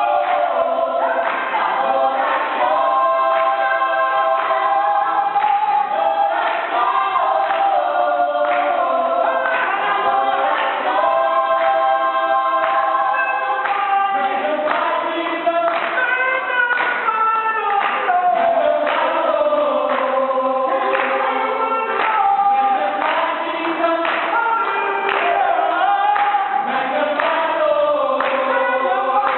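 Church worship group singing together in chorus, a gospel worship song with voices held and moving through the melody.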